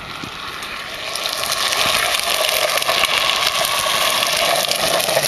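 Home-made drift trike's wheels rolling and sliding on tarmac: a steady grinding hiss that swells as the trike comes closer, then holds loud.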